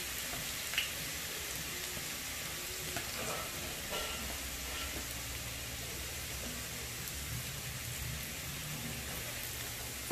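Hot oil sizzling steadily in a wok around whole spices and ginger, with a few faint pops.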